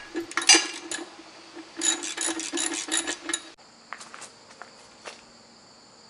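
A hand wrench tightens the nuts and bolts on a steel scraper shoe fitted to a backhoe bucket, making quick runs of metallic clicks. About three and a half seconds in the clicking cuts off abruptly, and insects trill steadily under a few faint ticks.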